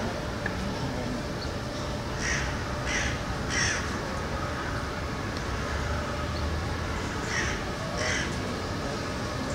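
A series of short, harsh animal calls: three in quick succession about two seconds in, then two more near the end, over a steady low background hum.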